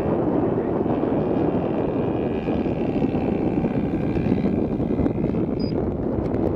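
Engine of a one-third scale Aeronca Champ RC model, a 3W-100 gasoline engine, running steadily in flight, heard from the ground, with wind on the microphone.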